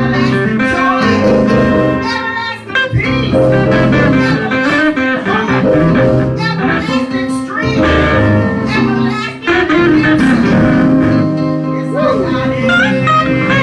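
Gospel band music led by guitar, with singing.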